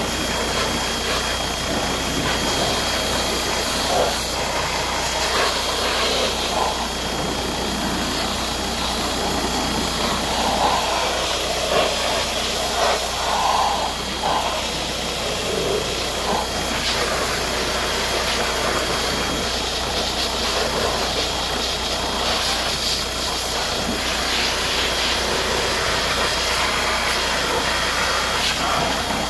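Pressure washer running, its water jet hissing steadily as it sprays down a car's engine bay, with a thin, steady high whine running under the spray.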